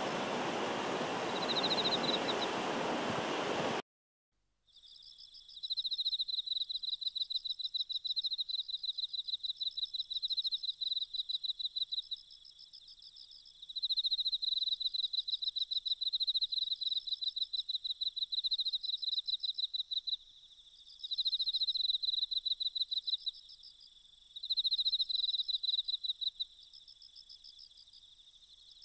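Loud steady rushing noise cuts off suddenly a few seconds in. An insect then sings a high, rapidly pulsed trill in phrases of several seconds, with short pauses between them.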